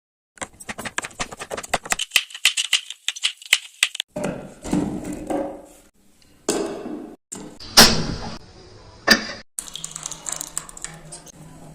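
Kitchen food-preparation noises in short edited clips: a fast run of small clicks and rattles for about four seconds, then bursts of rushing noise that cut in and out, with one sharp clatter about eight seconds in.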